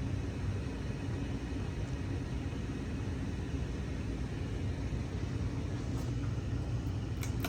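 Sportscast Coca-Cola ceiling fan running on medium speed: a steady low motor hum with air noise. A few sharp clicks come near the end.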